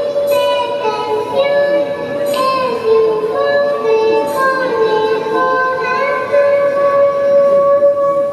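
A Vocaloid song playing back: a high singing voice holding long notes over the backing music.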